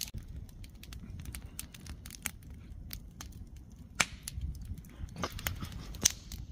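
Campfire crackling: irregular sharp pops and snaps, two louder ones about four and six seconds in, over a low steady rumble.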